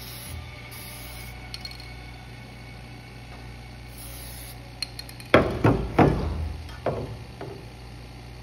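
Aerosol spray can hissing in three short bursts, then a handful of loud knocks about five seconds in.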